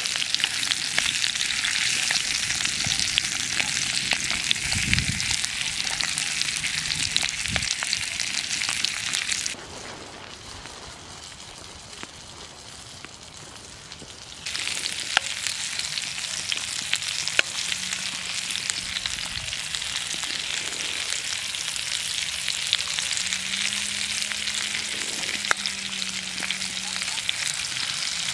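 Sausages and potato slices sizzling in hot fat in an aluminium pan over a campfire, a steady crackling hiss with scattered small pops and light spoon clicks as the fat is spooned over. The sizzle drops away for about five seconds near the middle, leaving only quieter outdoor background, then comes back.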